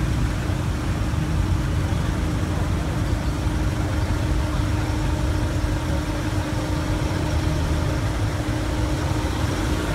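Minivan engine idling steadily: a low rumble with a constant hum.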